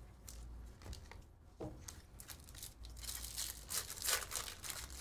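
Trading cards handled and flicked through by hand, then a foil card-pack wrapper torn open with a crinkling rip. The ripping is loudest in the last two seconds.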